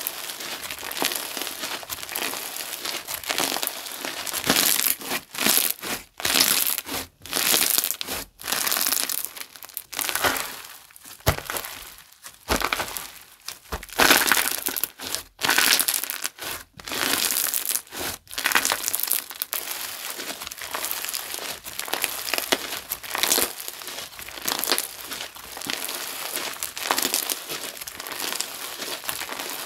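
Glue-based slime being squeezed and pressed by hand, making dense crackling and crinkling sounds, with short pauses between the harder presses.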